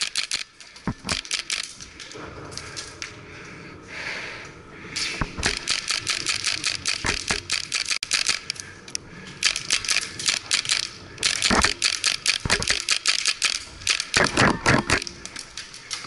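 Airsoft gunfire: strings of rapid, sharp shots and clatter, several bursts each lasting a second or more, with a quieter lull early on.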